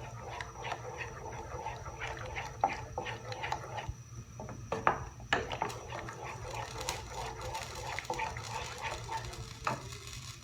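A spoon stirring and scraping tomato sauce in a cooking pan, with irregular clinks and knocks against the pan, over a low steady hum.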